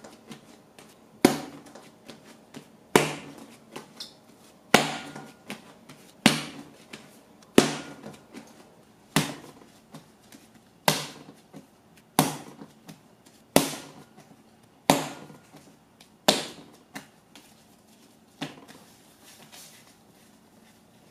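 Soft bread dough slapped down hard onto a countertop by hand during kneading: a sharp slap about every one and a half seconds, about a dozen in all. Near the end the slaps stop and give way to soft rubbing as the dough is rounded into a ball.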